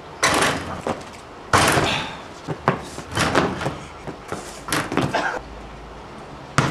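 A series of bangs from a driveway basketball hoop as a player dunks, the rim and backboard struck and rattling, with further ball impacts following.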